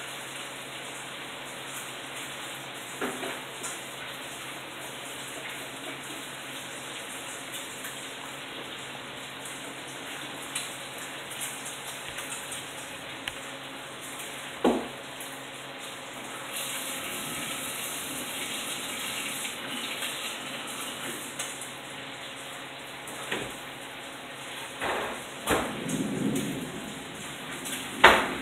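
Heavy rain pouring steadily from a hurricane's outer band. A few short sharp knocks break through now and then, the loudest near the end.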